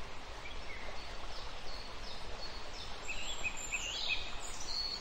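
Steady background hiss of outdoor ambience with scattered short, high bird chirps, including a quick run of several about three seconds in.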